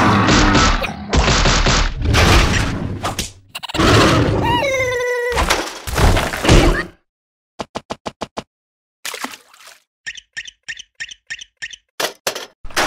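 Cartoon slapstick sound effects: several loud crashes and thuds, with a short wailing cry partway through. After that, two runs of quick light ticks with near silence between them.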